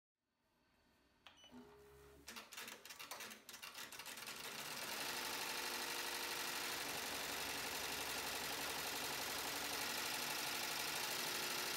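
MakeIT P&E 15-needle commercial embroidery machine starting up with a few sharp clicks, then stitching steadily at speed from about four or five seconds in.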